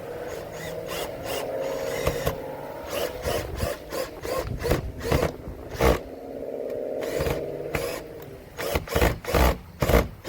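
Power drill driving a 3.5-inch screw, its motor whining while the bit slips and chatters in a stripped screw head, making a run of sharp irregular clicks. It runs in two bursts, with the loudest clicks in the second half.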